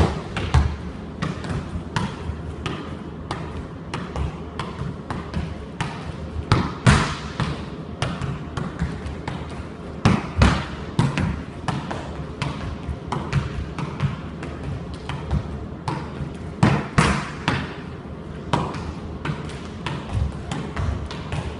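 A football being volleyed against a wall over and over, kept up without touching the floor: an irregular run of sharp thuds as foot strikes the ball and the ball hits the wall, a few a second.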